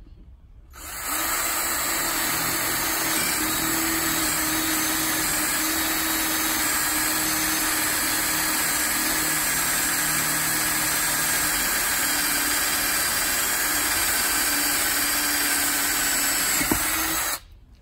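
Ryobi cordless drill boring a 3/8-inch hole through a solid wood door, its motor running steadily under load. It starts about a second in and cuts off suddenly near the end.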